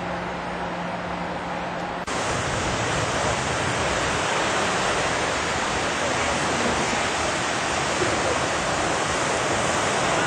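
Ocean surf washing onto a sandy beach, a steady rush of noise that starts abruptly about two seconds in. Before that, a steady low hum with background noise.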